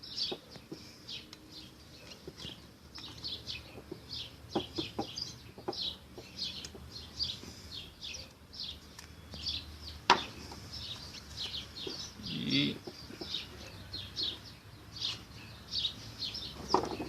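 Small birds chirping over and over, with a few sharp clicks, one loud click about ten seconds in.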